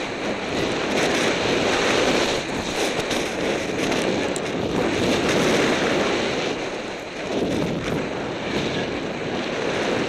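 Wind rushing over the microphone of a skier's camera during a descent, mixed with the hiss of skis through deep new snow; the noise swells and dips every second or two.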